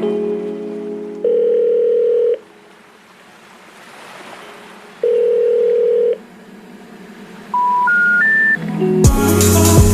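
Electronic background music. It fades to two long, flat, dial-tone-like beeps, then a rising three-note chime, and a beat with a deep drum comes in near the end.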